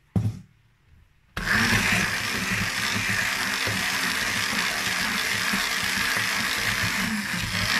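An immersion blender is switched on about a second and a half in and runs steadily, blending a thin white sauce in a metal saucepan. A short knock comes just before it, near the start.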